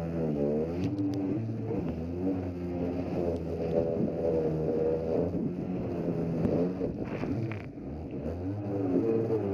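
Polaris SL750 personal watercraft's two-stroke engine running hard, its pitch repeatedly dipping and climbing as the craft bounces over the chop, with water rushing and splashing against the hull. The engine note sags briefly near the end, then climbs again.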